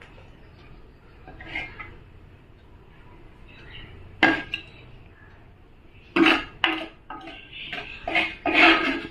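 Metal spoon clinking and scraping against a kadai while mixing pickle. There is one sharp clink about four seconds in, then a quick run of clinks with brief ringing over the last three seconds.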